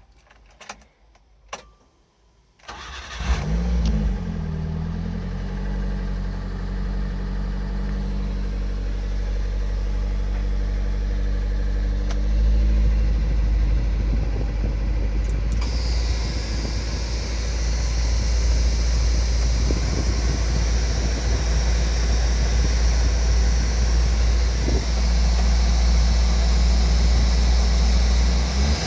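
A few light clicks, then a kei truck's engine is cranked and starts about three seconds in, settling into a steady run. About halfway through, a steady higher hiss joins the engine sound.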